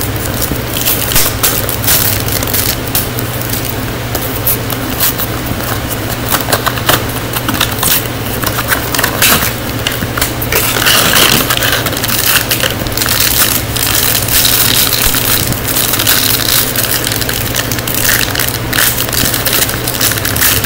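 Toy blind-box packaging handled and torn open: a cardboard box pried apart and a foil wrapper bag ripped and crumpled by hand, giving a dense run of irregular crinkles, crackles and tearing.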